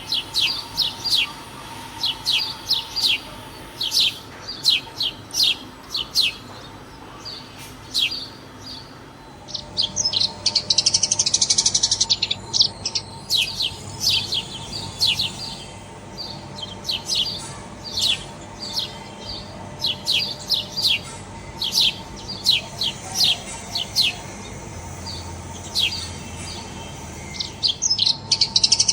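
Several birds chirping at a feeding spot: short, high, repeated chirps with stretches of fast, dense chattering about ten seconds in and again at the end.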